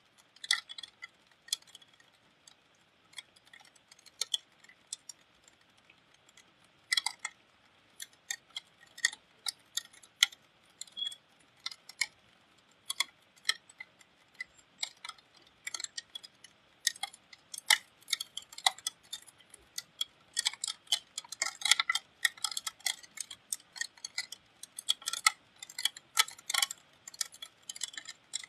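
Raindrops and drips striking a hard surface close to the microphone: irregular sharp ticks that come more thickly in the second half.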